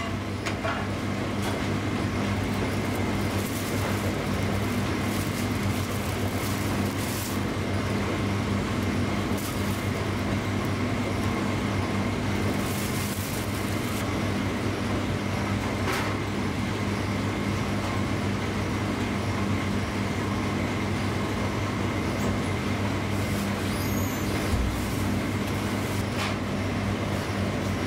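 Steady low machine hum, with the metal top plate of an electric contact grill lowered shut at the start and a few light clicks later.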